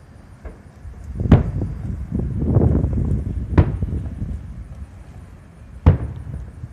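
Aerial firework shells bursting: three sharp booms about two seconds apart, with a rumble of smaller bangs between the first two.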